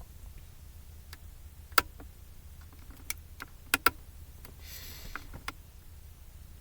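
A handful of sharp clicks and taps, scattered irregularly, with a brief soft rustle about five seconds in: handling noise, with nothing else going on.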